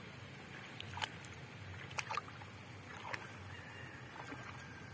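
Shallow muddy paddy water sloshing around a small child's legs as he wades, with a few brief small splashes about one, two and three seconds in, over a low steady background rumble.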